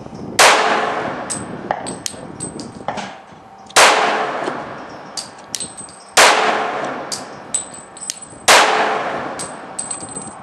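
Glock 24 pistol in .40 S&W fitted with a compensated barrel firing four slow aimed shots, two to three seconds apart, each trailing off in echo. Fainter sharp cracks sound between the shots.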